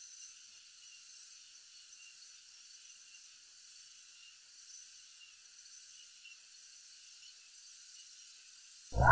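A faint, steady high hiss with nothing deep under it. Right at the end a loud, deep dinosaur roar sound effect bursts in.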